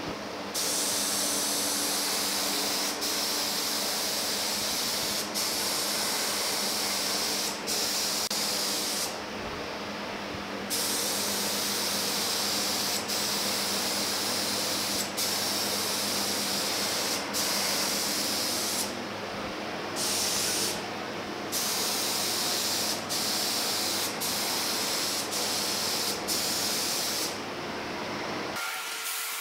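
Air-fed gravity-feed spray gun spraying etching primer: a steady hiss in passes, broken by short gaps where the trigger is released between strokes. It stops near the end.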